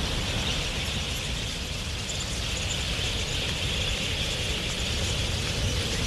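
A huge flock of wild budgerigars in flight, heard as a steady, dense wash of massed chattering calls over a low rumble.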